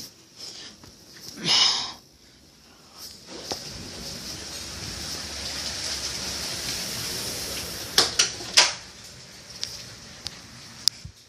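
Thunderstorm wind and rain: a rushing noise swells over several seconds and drops away, with a few sharp knocks near the end.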